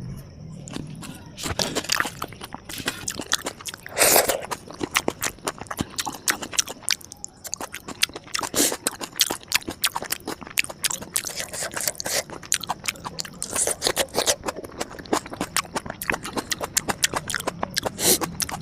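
Close-miked eating: rapid crunching and chewing of crisp food, with louder crunching bites about four seconds in, midway and near the end.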